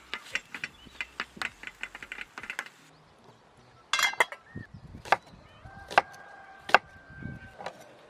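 A quick run of light taps, then after a short pause a few sharper knocks about a second apart, like chopping or striking on wood.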